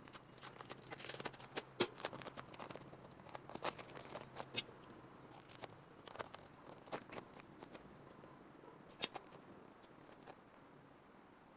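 Hand snips cutting thin rusted sheet steel from a car body panel: a string of sharp, irregular snips and clicks, thick in the first few seconds and sparser later.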